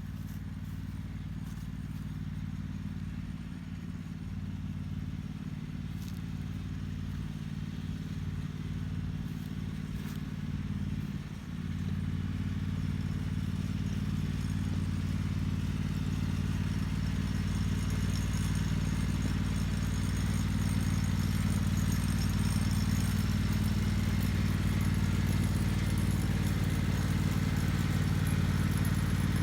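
Engine of a vehicle seeding a pasture, running steadily and growing gradually louder as it comes closer, with a brief dip in level and pitch about eleven seconds in.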